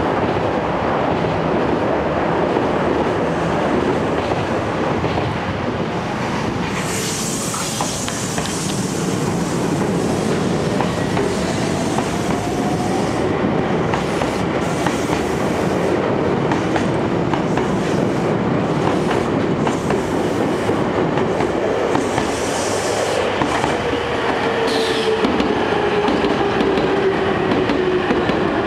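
Semboku Rapid Railway 7000 series electric train pulling out of the station, its wheels clattering over rail joints and its motor whine rising as it gathers speed. Near the end another electric train comes in, its motor whine falling as it slows.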